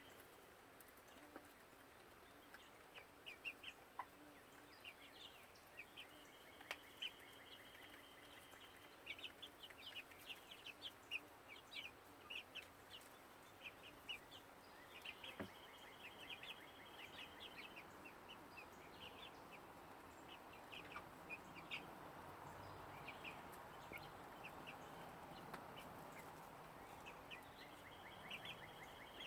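Chickens calling faintly, with short high chirps and trills coming in bursts again and again.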